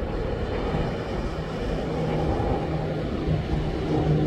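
A steady rush of outdoor noise with a low motor drone that comes in about a second in and grows louder near the end.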